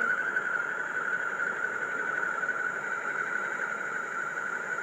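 Space sonification of a planet's winds played back, described as scary: a steady, slightly wavering high tone over a constant hiss.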